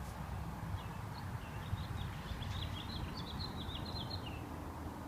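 A small bird twittering: a quick run of short high chirps from about a second in until near the end, over a steady low background rumble.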